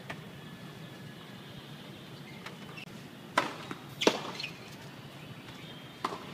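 Tennis racket strings striking the ball in a rally: a serve about three and a half seconds in, a louder return just after, and another stroke near the end, with a few fainter knocks between.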